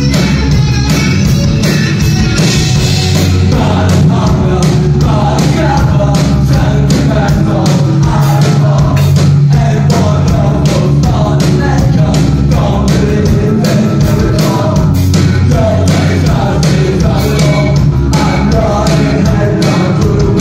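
Live rock band playing loud: electric guitars and drums with rapid, steady drum and cymbal hits. A male voice starts singing about four seconds in, heard from among the audience.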